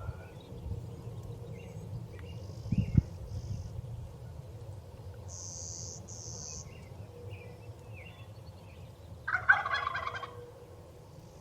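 A wild turkey gobbling once, loud and rattling, about nine seconds in. A sharp low thump comes about three seconds in, with small bird chirps scattered throughout.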